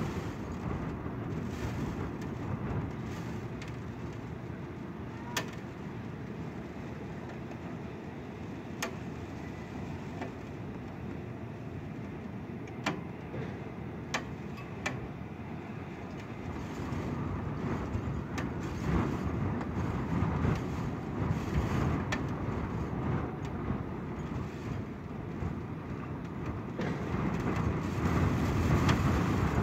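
Wind gusting against the microphone with rain, a low rushing noise that swells louder a little past halfway and again near the end. A few sharp ticks are scattered through.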